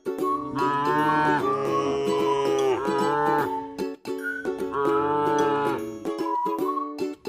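Cattle mooing: two long, drawn-out moos, the first beginning about half a second in and the second past the middle, over background music.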